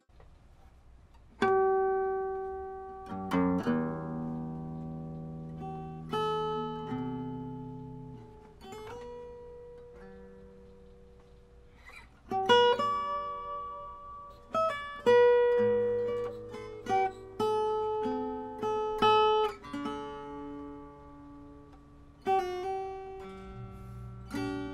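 Solo acoustic guitar playing a slow instrumental passage: single notes and chords plucked and left to ring out and fade. It starts after about a second and a half of quiet.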